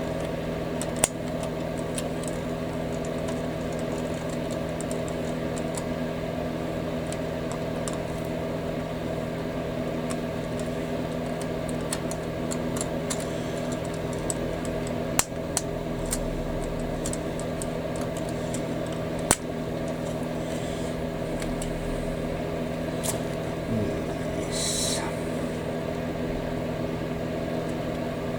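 A steady mechanical hum of several held tones, with a few sharp clicks: one about a second in and two more past the middle.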